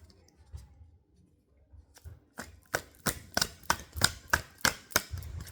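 Tarot cards being handled on a table: a run of about ten sharp taps, about three a second, starting about two seconds in.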